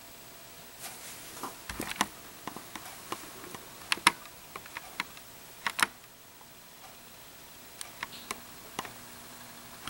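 Scattered small clicks and ticks, irregular rather than rhythmic, the sharpest about two, four and six seconds in, with a few lighter ones near the end.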